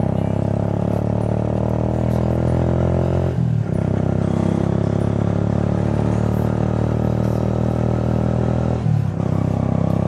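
Motorcycle engine running steadily while the bike is ridden along a road. The engine note dips briefly twice, about three and a half seconds in and again near the end.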